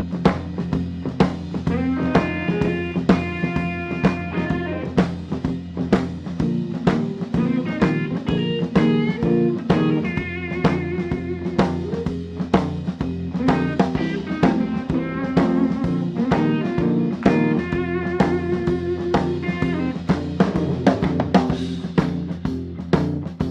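Background music: a rock track with a steady drum-kit beat, snare and bass drum, under pitched guitar lines.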